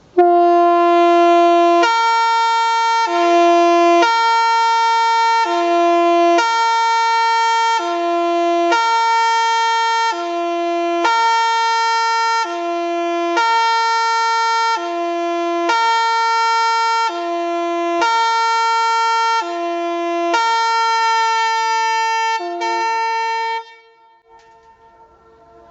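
Tremulator Tyfon MKE 75/350-460 fire-brigade siren horn sounding its two-tone alarm for a siren test: a loud, steady pair of horn tones switching between a lower and a higher pitch, about one cycle every two and a half seconds. It cuts off about 24 seconds in.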